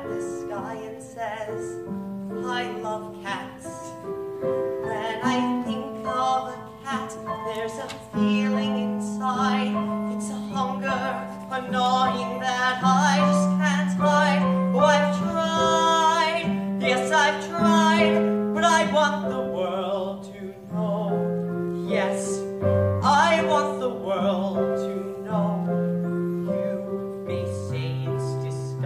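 Live piano accompaniment playing a show tune, with a voice singing with vibrato at times over it.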